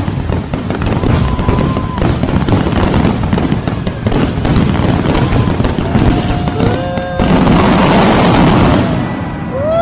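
Fireworks grand finale: rapid, overlapping bangs and crackling bursts, thickening into a dense roar about seven seconds in. Crowd whoops and cheers start to rise near the end.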